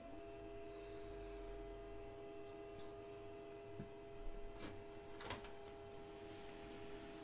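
Faint steady electrical hum of a few held tones from a machine, with two light clicks about two-thirds of the way in.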